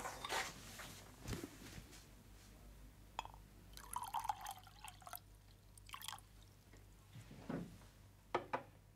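Coffee poured from a glass carafe into a ceramic mug for about a second, about four seconds in. Scattered light knocks and clinks of handling come before and after.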